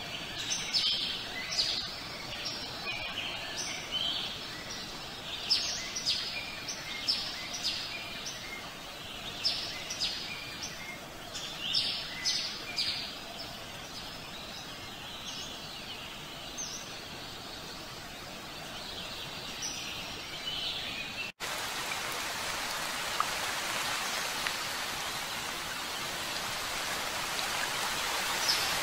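Outdoor birdsong ambience: many short chirps and calls over a soft background hiss. About two-thirds of the way through it cuts off suddenly and gives way to steady rain.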